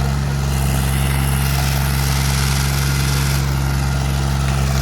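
Heavy diesel engine running steadily at an unchanging speed, a low even hum.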